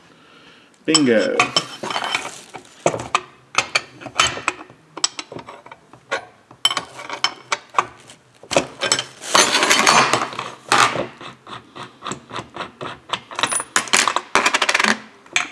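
Steel combination wrenches clinking and clanking against each other and against a Farmertec 372 chainsaw's crankshaft nut and crankcase: many sharp separate metal knocks, with a longer scraping rustle about two-thirds through and a quick run of clicks near the end.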